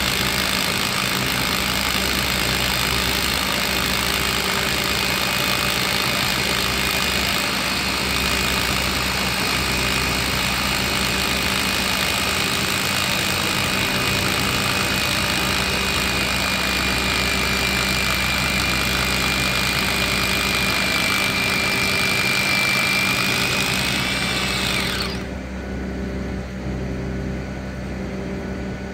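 Steady machine noise on a construction site: a high whine that sags slowly in pitch over a running engine's hum. The whine and most of the noise stop suddenly about 25 seconds in, leaving the engine hum.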